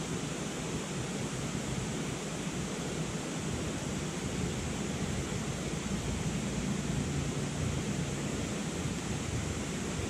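Steady rush of river rapids.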